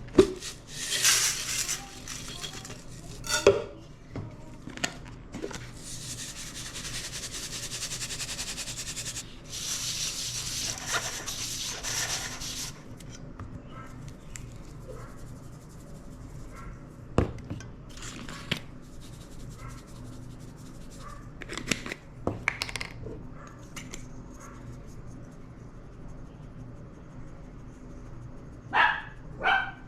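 Kitchen prep sounds as a batter and breading are made: bowls and utensils clink and knock now and then, with three stretches of steady rustling, scraping noise of a few seconds each in the first half.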